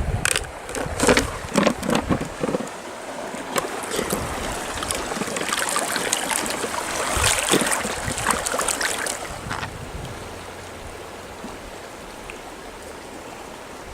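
River water splashing and sloshing, with scattered sharp knocks, for about ten seconds. It then settles into a steadier, quieter rush of flowing water.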